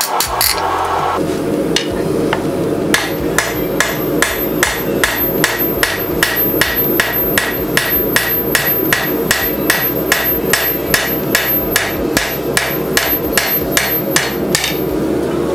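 Hand hammer striking red-hot 1¼-inch rebar on an anvil, forging out a chopper blade. A brief flurry of blows at the start, then after a pause a steady run of about three blows a second that stops shortly before the end.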